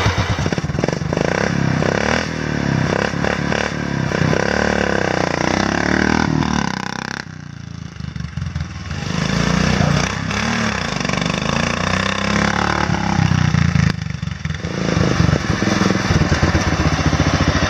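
Ungoverned Briggs & Stratton OHV engine on a riding lawn mower, fitted with a Mikuni-style carburetor, revving up and down as the mower is driven. It grows fainter midway as the mower moves off, then comes back close and settles into a steady, even beat near the end.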